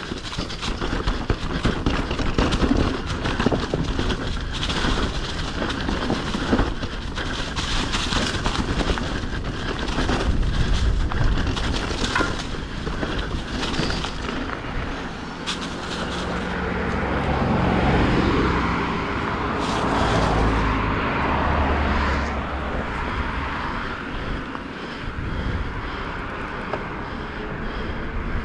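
Mountain bike clattering and rattling over rough trail, with wind rushing across a helmet camera's microphone. A low, steady drone comes in about halfway through.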